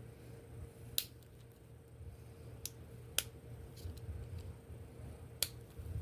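Small sharp clicks and taps of the plastic parts of a 12-volt DC plug being handled and fitted back together, four distinct clicks with a few fainter ticks between, over a low steady hum.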